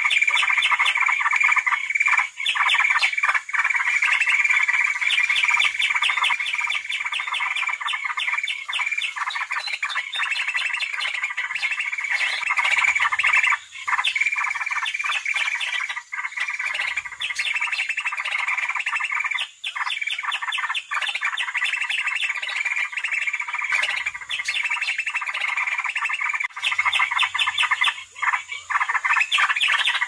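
Recorded calls of greater green leafbird (cucak ijo) and grey-cheeked bulbul (cucak jenggot) in a fighting exchange, used as a bird lure. The calls are dense, rapid chattering and harsh squawks with only a few momentary breaks.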